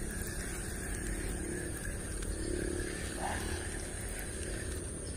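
Outdoor riverside ambience: insects droning steadily at a high pitch over a low, steady rumble of distant road traffic and motorbikes.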